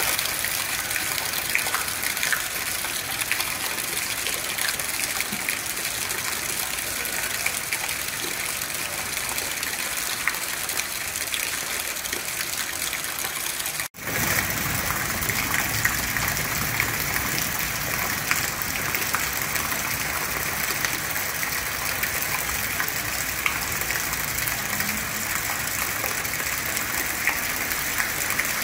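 Heavy rain falling steadily onto a flooded street, a dense hiss of drops splashing into standing water. It cuts out for an instant about halfway through, then carries on.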